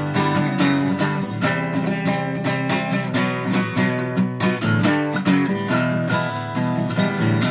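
Acoustic guitar strummed in a steady rhythm: an instrumental passage of the song with no singing.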